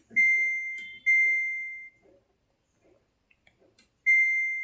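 Samsung front-load washing machine's control panel beeping as its buttons are pressed to choose a wash cycle: three single high beeps at the same pitch, two in quick succession at the start and one about four seconds in, each fading out within a second. Faint clicks of the buttons come between them.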